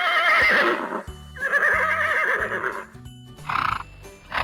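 Horse neighing: two long whinnies with a quavering, shaking pitch, then a short call near the end, over light background music.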